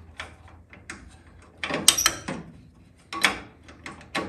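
A wrench working the mounting nuts of a power brake booster against a car firewall: scattered metal clicks, with two short runs of rattling clicks about two and three seconds in.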